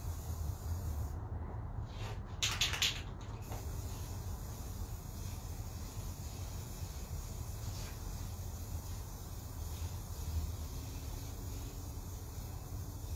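Aerosol spray can sprayed in one short burst of hiss, about two seconds in, over a steady low background hum.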